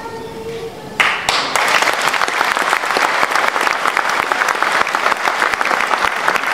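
A held sung note fades away, then about a second in a large crowd suddenly breaks into applause: many hands clapping, dense and steady.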